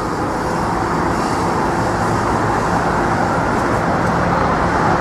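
Steady traffic noise from vehicles crossing the bridge, growing a little louder in the first second.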